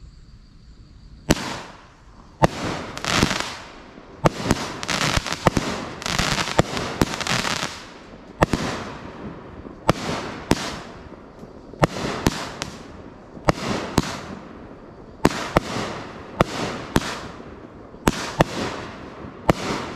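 Epic Fireworks 'Summer Time' 16-shot 200-gram consumer cake firing shot after shot. Sharp bangs start about a second in, each followed by a crackling hiss from its gold crackle break.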